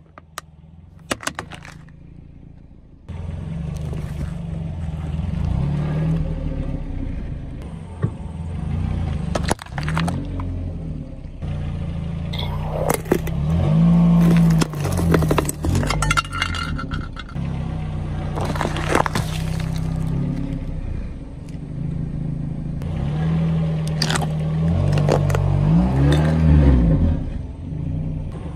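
A car's engine runs low, its pitch rising and falling a few times as the car creeps forward. The tyre rolls over and crushes plastic and metal objects with scattered cracks, scrapes and clinks. The first few seconds are quieter, with only a few clicks.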